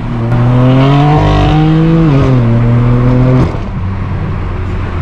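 Straight-piped BMW M4 F82's twin-turbo inline-six pulling at full throttle, very loud, its note climbing steadily with a short dip about two seconds in. About three and a half seconds in it cuts off sharply and falls back to a lower steady drone.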